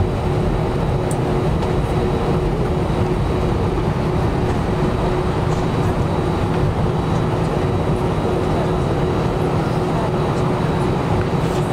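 Steady cabin noise of an Airbus A320 on the ground with its jet engines running at idle: an even rush with a low hum and a steady whine.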